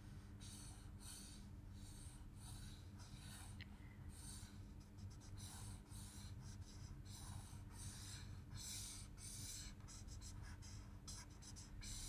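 Felt chisel nib of a design marker rubbing across paper in repeated short shading strokes, about two a second, faint and scratchy. The nib is pressed a little so it drags the ink while laying down flat tone.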